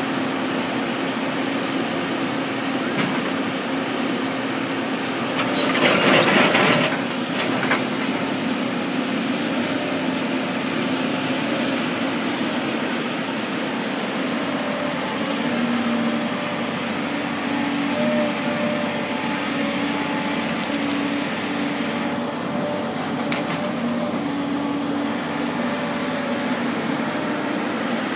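Volvo excavator's diesel engine running steadily, its hum stepping up and down in pitch as the hydraulics work the boom and bucket. About six seconds in, a loud rushing burst of noise lasts a second or so, with a few clicks later.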